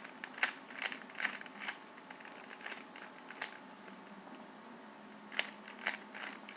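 Plastic Rubik's Cube layers being turned by hand: quick runs of sharp clicks and rattles in three bursts, about half a second in, around three seconds in, and near the end.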